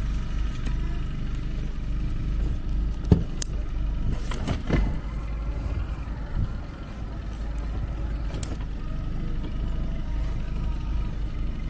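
Steady low rumble of a running engine, with a sharp knock about three seconds in and a few softer knocks a second or so later.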